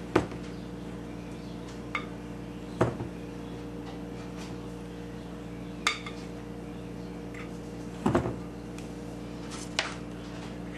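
Metal spatula clinking and tapping against dishes while frosting is spread on a cake, about six sharp clinks a second or two apart, over a steady low hum.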